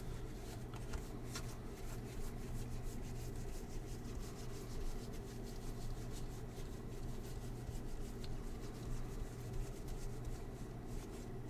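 Trading cards being slid and flipped through by hand: faint papery rubbing and many soft ticks, over a steady low hum.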